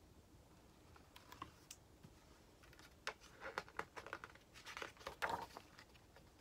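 Faint rustling and crinkling of picture-book pages being turned and handled, with a few light clicks, in irregular bursts from about a second in until near the end.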